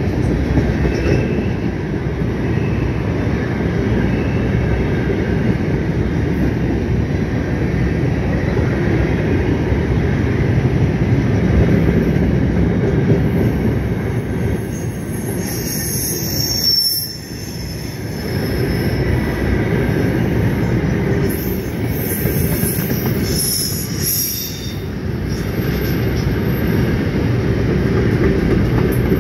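Freight train of covered hopper cars rolling past close by, a steady loud rumble of wheels on rail. Metal wheel squeal comes in twice, about halfway through and again a little later, with a short lull in between.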